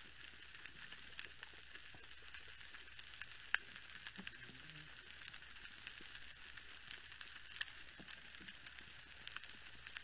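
Underwater coral-reef crackle: a steady, faint, dense crackling of snapping shrimp, with a few louder single snaps, the sharpest about three and a half seconds in.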